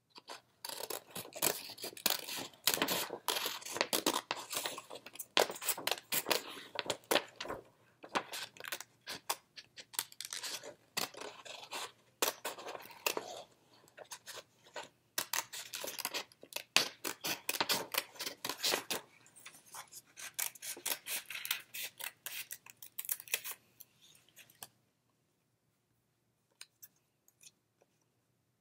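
Scissors cutting around a curved shape in a sheet of colored paper: a long run of quick snips with brief pauses, stopping a few seconds before the end, after which only a few faint ticks are heard.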